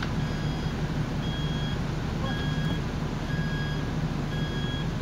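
Construction machine's back-up alarm beeping about once a second, each beep about half a second long, over the steady low running of a diesel engine.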